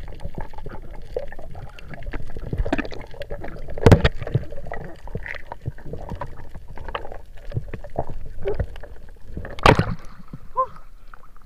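Water sloshing and gurgling around a camera held underwater, with a scatter of small clicks and knocks and one sharp knock about four seconds in. A loud rush of water just before ten seconds as the camera breaks the surface.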